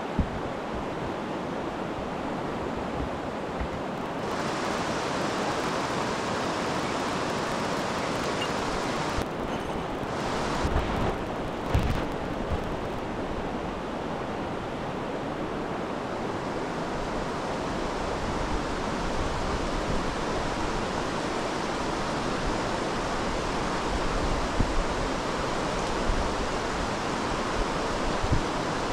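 Mountain stream rushing steadily, an even hiss of moving water that brightens about four seconds in. A few light knocks are heard briefly around ten to twelve seconds in.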